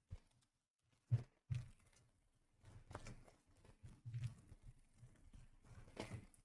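Trading-card packs and packaging being torn open and handled: faint, scattered rustles, taps and tearing, a few sharper knocks among them.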